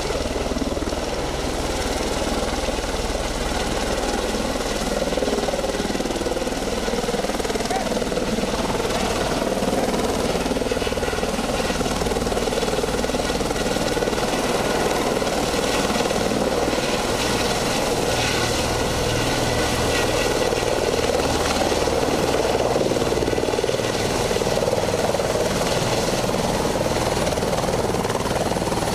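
Helicopter descending and coming in to land: rapid, steady rotor-blade thudding over a thin turbine whine, growing gradually louder as it nears the ground.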